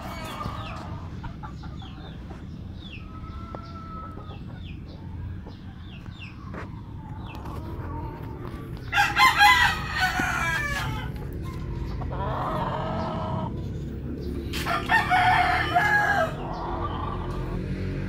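Roosters crowing: two loud, drawn-out crows, about nine and fifteen seconds in, with short high chirps before the first.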